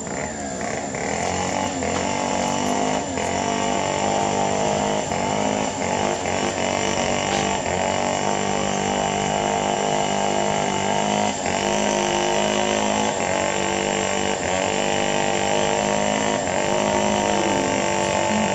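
A small engine running steadily, its pitch shifting a little every second or so.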